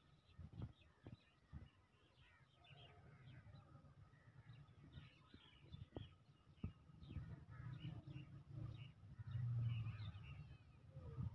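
Faint birds chirping and calling in many short notes, with a few soft knocks in the first seconds. A low hum grows louder over the second half.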